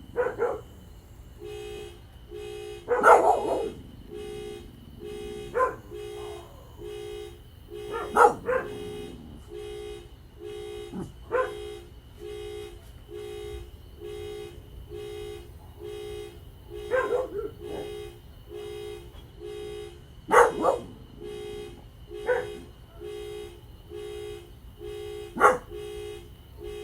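A car horn honking over and over at a steady pace, about one and a half short two-tone honks a second, starting a second or so in. A dog barks loudly now and then over it, a single bark or a short burst every few seconds.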